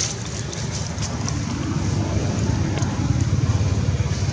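Wind buffeting the microphone: a fluttering low rumble that swells slightly about halfway through, with a few light crackles over it.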